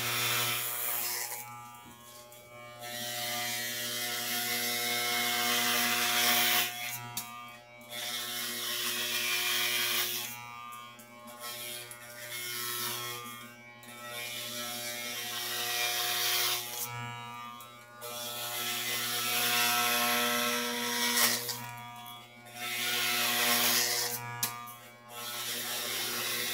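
Electric hair clippers buzzing steadily while they cut short hair, swelling and dropping in loudness every few seconds as they are run over the scalp in strokes.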